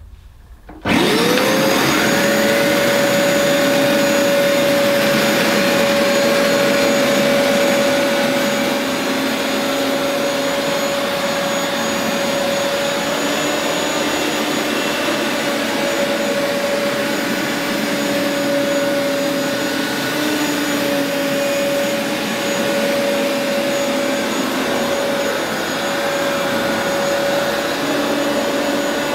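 Vax Rapid Power Plus upright carpet washer switched on about a second in, its motor winding up with a quickly rising whine. It then runs steadily with a strong even whine over the rushing noise of suction while it washes the carpet.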